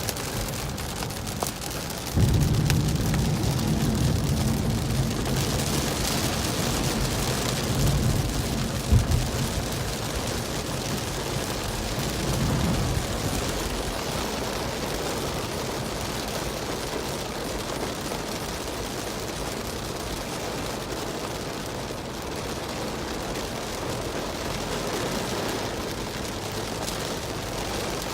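Heavy rain on a moving car with road and tyre noise, heard from inside. About two seconds in, a low engine drone comes up louder and holds until it eases off around thirteen seconds.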